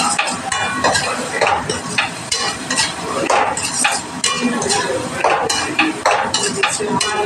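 Flat spatula stirring and scraping a thick onion-and-spice masala around a steel kadhai, with irregular scrapes and knocks against the pan over the masala sizzling in oil as it fries.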